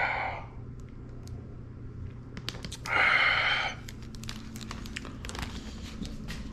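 Two breathy exhales after sips of a drink, about three seconds apart, with light clicks of the camera being handled in between and a steady low hum underneath.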